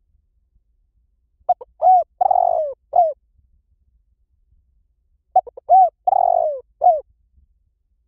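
Spotted dove calling: two cooing phrases about four seconds apart. Each phrase is a couple of short coos, then a longer rough coo, then a closing coo.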